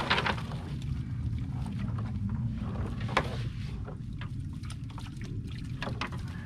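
Wet cast net lifted from the water and emptied over a bait well: water running off the mesh, with a sharp knock or splash at the start and another about three seconds in, over steady wind rumble on the microphone.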